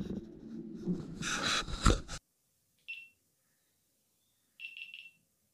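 Rubbing and knocking of a GoPro being handled inside a full-face helmet shell, picked up close by the camera itself, with one sharp knock just before it cuts off about two seconds in. Then a single high electronic beep from the GoPro Hero 7, and near the end three quick beeps.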